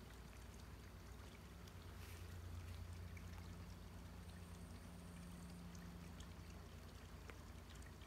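Faint outdoor ambience: a low steady rumble that swells slightly in the middle, under a soft even hiss.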